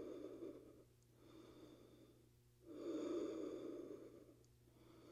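A woman breathing hard and audibly through a strenuous core exercise. There are two long, louder breaths of about a second and a half each, alternating with quieter ones.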